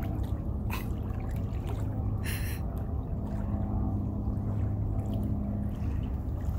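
A steady low motor hum, with a short hiss a little over two seconds in.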